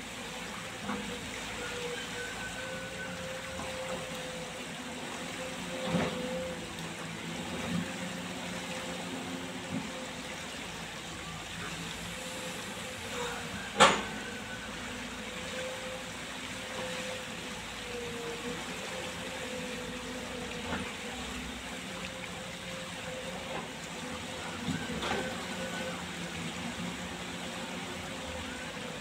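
Kobelco hydraulic excavator running while it digs soil: a steady engine drone with a wavering mid-pitched tone over it. A few knocks break through, the sharpest and loudest about 14 seconds in.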